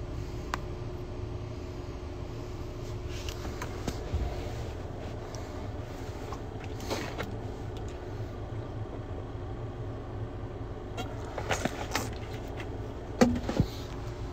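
Steady low rumble of a car heard from inside the cabin, with a faint steady hum above it. A few brief knocks and rustles come near the end.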